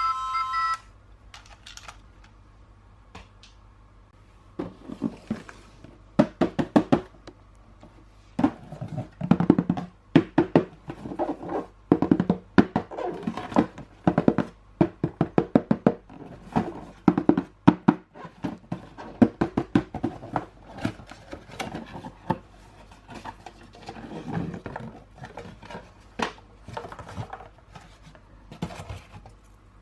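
Hands handling a toy and its plastic and cardboard packaging: many short, irregular clicks, taps and knocks in clusters.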